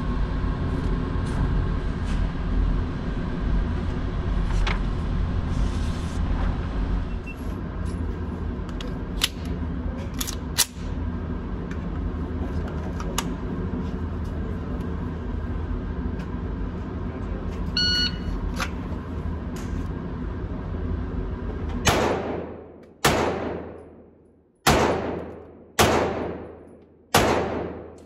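A steady low hum with a few faint clicks and a short beep, which cuts off about 22 seconds in. Then a Canik SFX Rival 9mm pistol fires five shots, roughly one every second and a bit, each echoing briefly in an indoor range.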